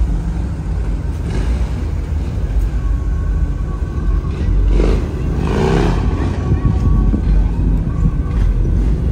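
Car engine running with a steady low rumble, a voice calling out about five seconds in, and faint music in the background.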